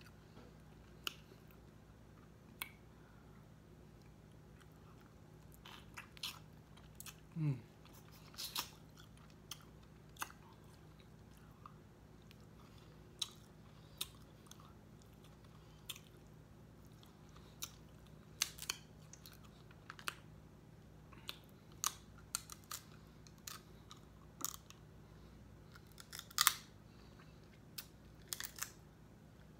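Snow crab leg shells cracked and snapped apart by hand, with close-up chewing and mouth sounds: scattered sharp cracks and clicks, the loudest near the end. A brief hum from the eater about seven seconds in.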